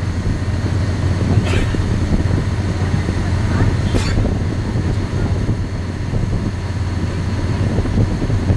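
Excursion boat's engine running steadily with a low drone, heard on board while cruising. Two short sharp clicks come through, about one and a half and four seconds in.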